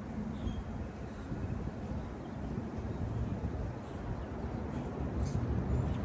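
Wind buffeting the microphone, a steady, gusting low rumble.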